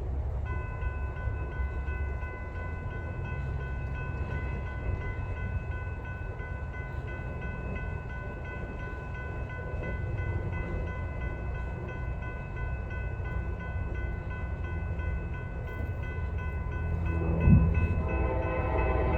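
Railroad grade-crossing bell ringing in rapid, even strokes over the low rumble of an approaching train; near the end a locomotive horn begins to sound.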